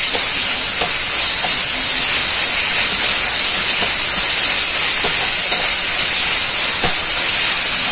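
Spice-and-onion masala paste sizzling as it fries in oil in a metal kadai: a loud, steady hiss, with a few faint scrapes of the spatula stirring it against the pan.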